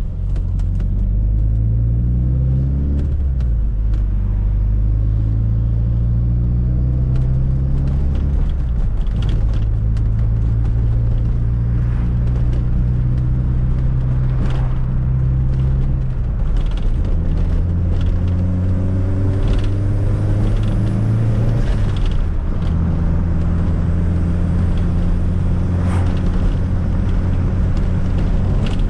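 Fiat Coupe 16V Turbo's turbocharged four-cylinder engine driving under way, heard from inside the car. Its pitch climbs at first, then holds steady, with changes in engine speed a few times as the car shifts and varies its pace. Scattered light clicks and rattles sound over the engine.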